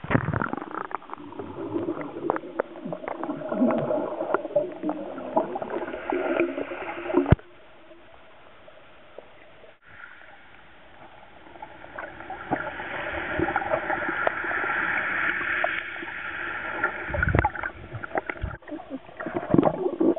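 Sea water heard through a camera held underwater: muffled gurgling and bubbling with many small clicks. It drops away abruptly about seven seconds in, then a hiss swells and fades, with a few dull thumps near the end.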